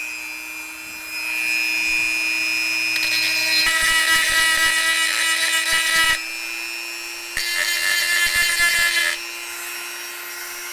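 Dremel rotary tool running with a steady high whine, grinding aluminium off a camera lens's rear mount. Two louder rasping stretches come as the bit bites into the metal, one about four seconds in and one about seven and a half seconds in. The tool cuts off suddenly at the end.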